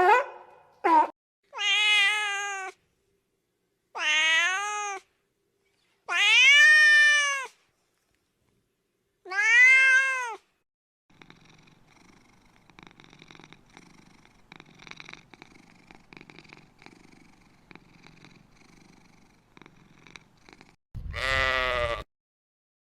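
A cat meows four times, each meow rising and then falling in pitch. Then comes a long stretch of faint, fluttering purring. Near the end there is one loud, rough call.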